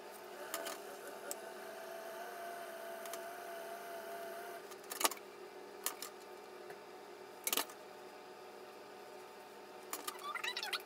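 Hair flat iron clicking shut and open a few times as it clamps and slides down sections of hair, over a faint steady hum; short squeaky chirps begin near the end.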